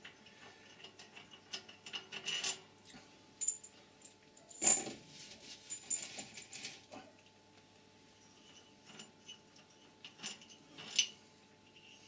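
Scattered metallic clinks and taps of hand tools and small fasteners against an air compressor's metal cylinder head as its head bolts are being removed, the loudest clink about five seconds in with a brief ring.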